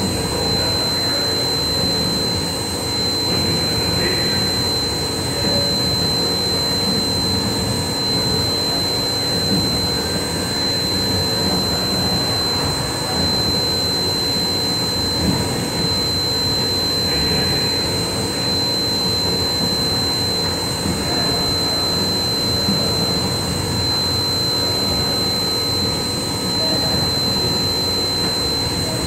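CNC machine running steadily: a constant high whine over an even mechanical rumble.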